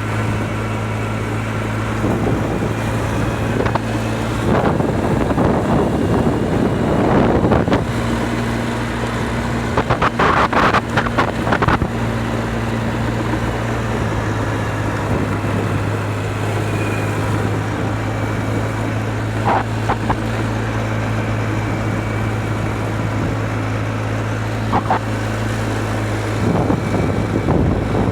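ATV engine running at a steady speed while riding, with a burst of rattling about ten seconds in.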